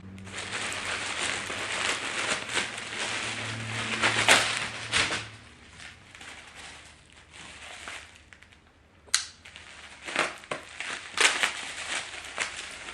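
Mail packaging being torn and crumpled open by hand: dense crinkling and crackling for about five seconds, then quieter, with scattered sharp clicks and rustles near the end.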